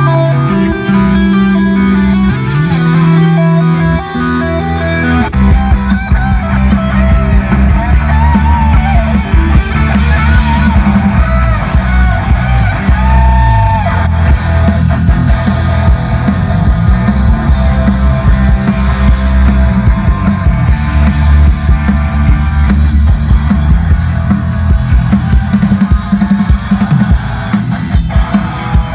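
Rock music played loud over a large outdoor concert PA: guitar with long held low notes, then the drum kit and full band come in about five seconds in and play on.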